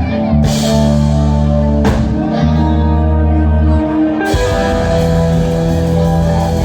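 Live rock band playing long held chords, the chord changing about four seconds in.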